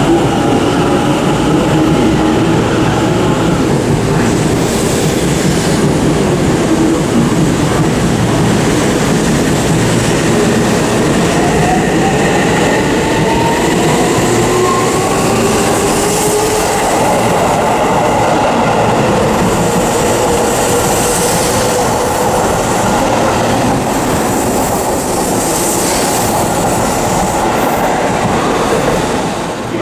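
Seibu 6000-series electric train pulling out and picking up speed. Its traction motors whine, rising in pitch several times, over the rumble and clatter of the wheels on the rails.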